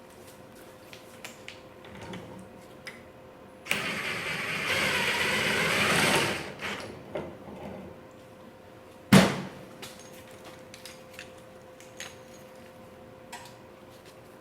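Workshop handling sounds: a hiss lasting about two and a half seconds, then a single sharp knock about halfway through, with small clicks and taps around them.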